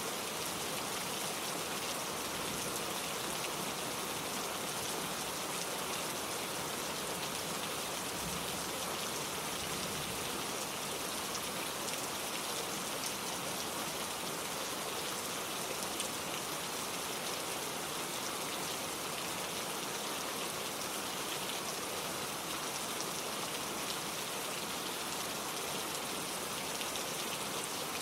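Steady gentle rain falling, with many fine drop patters on a surface and no thunder.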